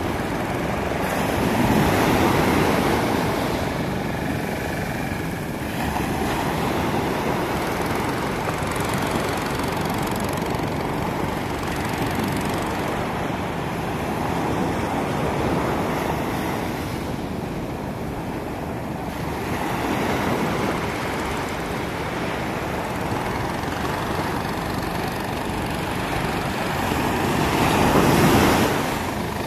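Sea surf breaking and washing up the beach in a steady rush, swelling louder with each incoming wave and loudest as a wave breaks close by near the end.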